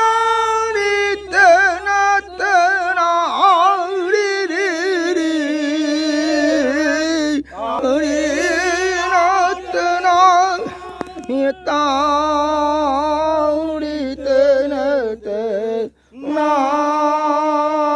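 A single voice singing a slow, ornamented devotional melody in the Manipuri nat sankirtan style, holding long notes with a wide, wavering vibrato. It breaks briefly for breath about halfway through and again about two seconds before the end, over a faint steady low hum.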